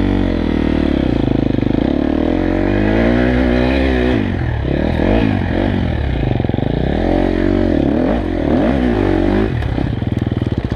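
KTM dirt bike engine heard from a camera on the bike, revving up and down again and again as it climbs a steep loose-dirt mound. The engine note rises and falls many times, then cuts off abruptly near the end.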